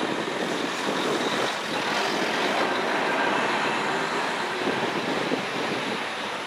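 Steady mechanical drone with a rushing noise, running evenly without breaks or sudden sounds.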